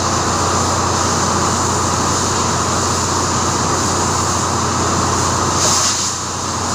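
Steady, loud drone of running machinery with an even low hum underneath; a short hiss swells briefly near the end.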